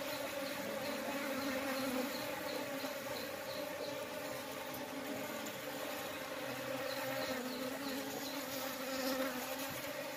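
Many honeybees buzzing together at the hive entrance: a steady, droning hum.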